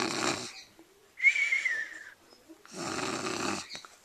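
A person doing cartoon-style snoring. A rasping snore is followed by a thin whistle that slides down in pitch, and then a second rasping snore.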